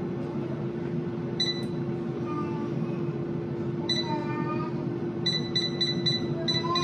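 Fagor air fryer's touch-control panel beeping as its buttons are pressed: one beep, another a couple of seconds later, then a quick run of about six beeps as the temperature is stepped down. A steady hum runs underneath.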